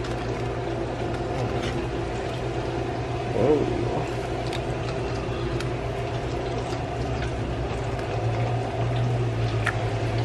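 Mozzarella sticks frying in hot oil: a steady sizzling hiss with scattered faint pops over a low, even hum. A brief voice-like sound comes about a third of the way in.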